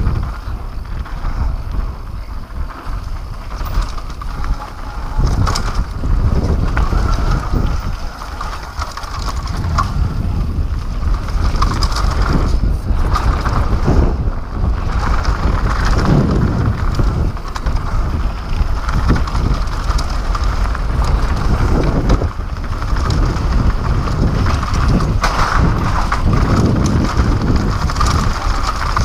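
Mountain bike descending a dirt downhill trail at speed: wind buffeting the microphone over the rumble of tyres on dirt, with scattered rattles and knocks from bumps.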